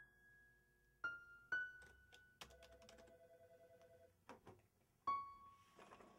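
Quiet piano music from the background score: single notes struck about a second apart, each ringing and fading, with a few short faint clicks.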